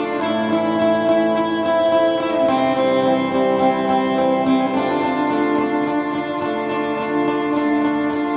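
Background music led by guitar, held chords that change every couple of seconds.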